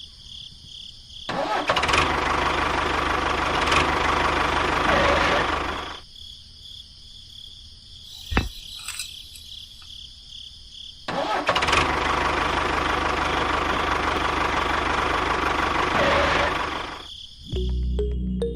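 A vehicle engine running, in two bouts of about five seconds each: the first starts about a second in, the second about eleven seconds in, with quieter stretches around them.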